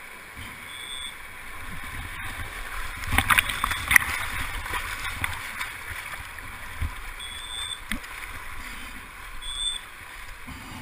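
Fast river water rushing and splashing close around a camera held at the water's surface. There is a cluster of louder splashes about three to four seconds in.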